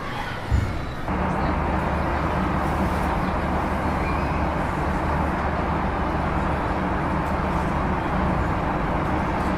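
City street ambience: a single sharp thump about half a second in, then from about a second in a motor vehicle engine runs steadily, a constant low drone over a haze of street noise.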